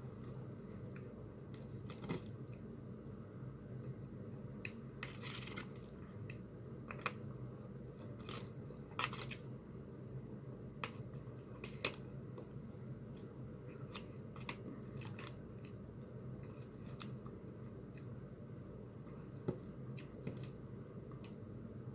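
Someone eating an omelette close to the microphone: scattered soft clicks and short chewing and crunching noises over a steady low hum.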